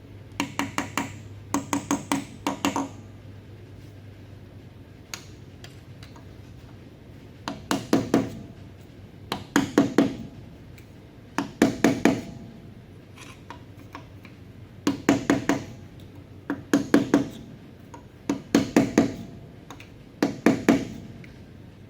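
Metal grease cap being driven onto the front wheel hub of a 1964 Dodge D100 with repeated hammer taps. The taps come in quick runs of three to five ringing metal strikes, one run about every two seconds.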